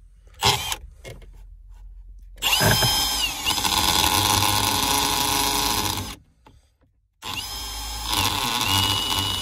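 Cordless drill boring a hole through plastic dashboard trim with a twist bit, in two runs. The motor spins up with a rising whine about two and a half seconds in and runs for about three and a half seconds, stops, then spins up again a second later and keeps going. A sharp knock comes about half a second in.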